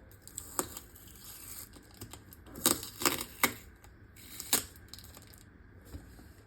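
A cardboard box being handled: about five sharp taps and knocks with light rustling between them, as the box is turned over and its tape is picked at.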